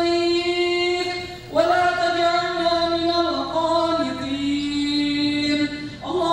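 A man's voice chanting a supplication in long, drawn-out notes, the melody stepping down in pitch, with a short break about one and a half seconds in.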